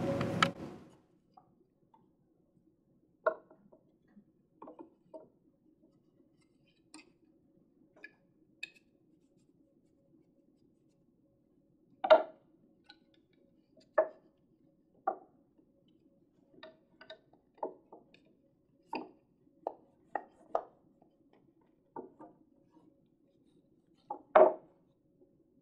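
Wooden canvas stretcher bars being fitted together at their corners and handled on a tabletop: about a dozen scattered wooden knocks and clunks, the loudest about twelve seconds in and another near the end, over a faint steady hum.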